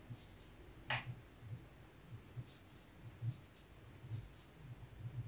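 Faint, irregular small ticks and soft handling taps from a metal crochet hook and cotton yarn as chain stitches are worked by hand, with one sharper click about a second in.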